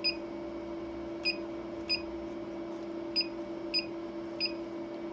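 Key-press beeps from a Redline embroidery machine's touchscreen control panel as numbers are tapped in: seven short, high beeps at uneven intervals, over a steady low hum.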